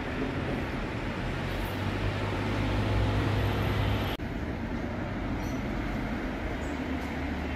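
Steady low background rumble and hiss with a low hum, changing abruptly to a slightly different steady noise about four seconds in.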